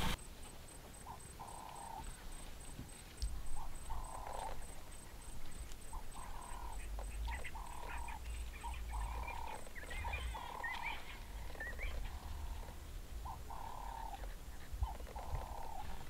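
An animal call repeated as short notes of even pitch, each about half a second long, coming roughly once a second, with a few higher chirps in the middle.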